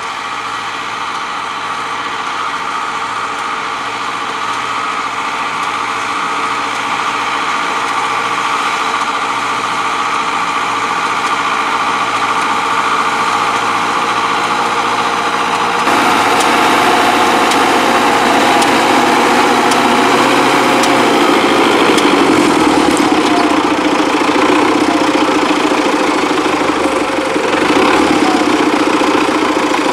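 Diesel engine of a Belarus MTZ-952 tractor running steadily as it pulls a potato planter, growing louder as it comes closer. About halfway through the sound changes abruptly to a closer, fuller engine note.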